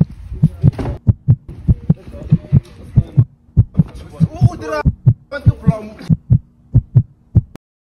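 A heartbeat sound effect: a fast, even run of deep thumps, with brief snatches of voices over it. It cuts off suddenly near the end.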